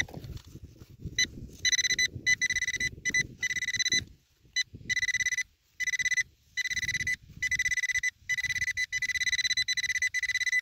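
Handheld metal-detecting pinpointer sounding its alert, a high buzzing tone that pulses rapidly and cuts in and out in repeated runs as the probe is worked through the loose soil. The alert signals metal close to its tip. Soft scraping of dirt runs underneath.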